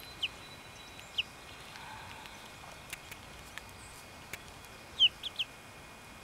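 Young chicks peeping: a few short, high, falling peeps spaced out, then a quick run of three about five seconds in.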